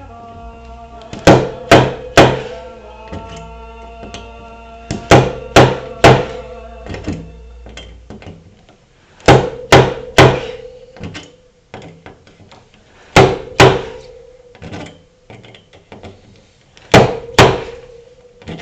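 Sharp metal-on-metal knocks from pulling dents out of a car body panel. The strikes come in quick sets of two or three about every four seconds, each leaving a brief metallic ring.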